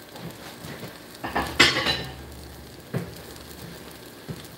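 Pancakes frying on an electric griddle, a steady soft sizzle. About a second and a half in there is a louder burst of handling noise, and a short knock comes about three seconds in.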